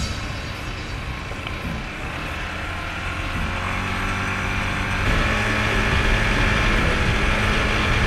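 ATV engine running at riding speed, with wind rushing over the microphone. The engine note steps up and gets louder about five seconds in.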